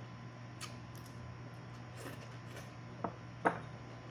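A person eating with chopsticks from a porcelain bowl: faint scattered clicks and smacks of chewing and picking up food, with two sharper clicks near the end, over a steady low hum.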